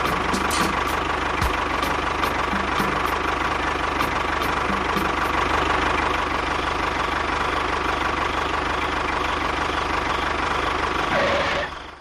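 Motor running steadily with a constant whine and a few light clicks in the first half. It cuts off suddenly at the very end.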